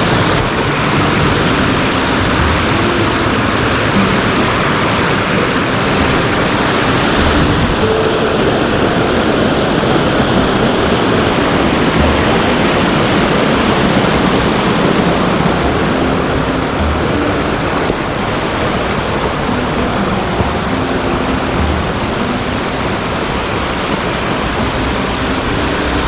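Waterfall: a loud, steady rush of falling water, a little softer in the last third.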